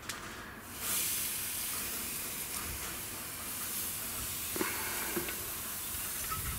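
Steady hiss of raw beef steaks sizzling gently on a kamado grill grate, with a couple of soft knocks as they are set down.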